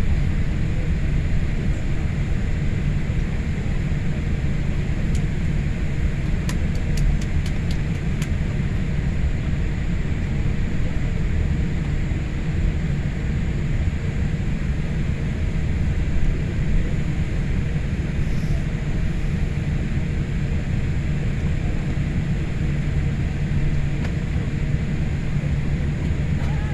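Steady low rumble of Boeing 787 cabin noise, with a quick run of faint clicks about six to eight seconds in.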